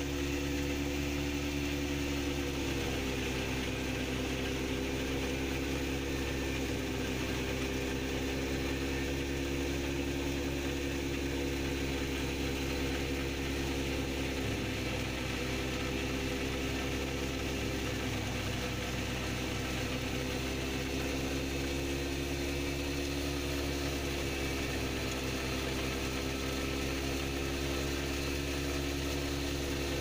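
Belt-driven wheat thresher running steadily with its drive, a constant mechanical drone whose pitch sags slightly now and then.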